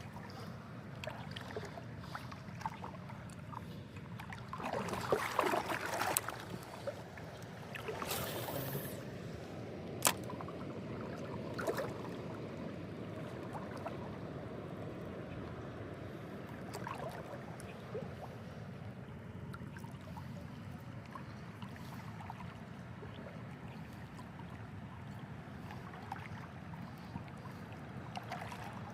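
River water running steadily, with a couple of brief splashing or rustling bursts and one sharp click about ten seconds in.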